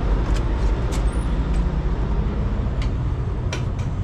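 Steady low rumble of diesel truck engines running, with a few short sharp clicks and taps over it.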